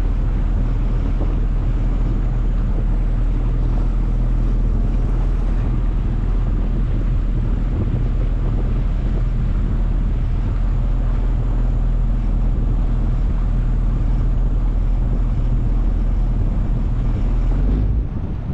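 Small motorboat's engine running steadily under way, a low even drone with wind buffeting the microphone; the engine sound drops away sharply near the end.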